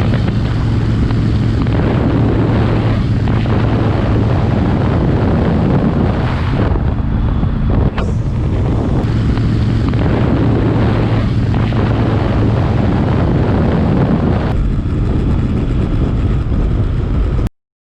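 Motorcycle running at road speed with heavy wind buffeting on the microphone, a steady low engine hum with a few brief dips in the note. It cuts off abruptly near the end.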